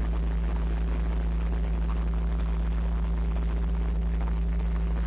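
A large mobile crane's diesel engine running steadily, a constant low hum heard inside the operator's cab.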